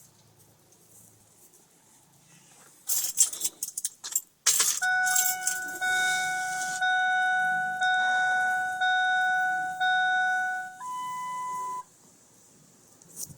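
Keys jangling briefly as the ignition key is handled, then a dashboard warning chime sounds: a steady tone broken about once a second for around six seconds, followed by a higher beep lasting about a second.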